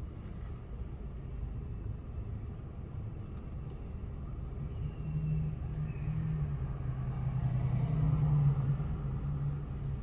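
City traffic rumble heard from inside a car waiting at a red light. A vehicle engine hum comes in about halfway through, grows louder and eases off near the end.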